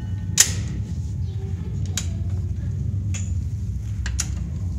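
Steady low machinery rumble in a ship's engine room, loud enough to suggest the engines are running. Sharp metallic clanks cut through it, the loudest about half a second in, with more at about two, three and four seconds.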